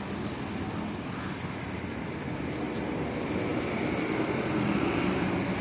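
Road traffic noise with a vehicle engine humming, growing louder in the second half as it comes nearer.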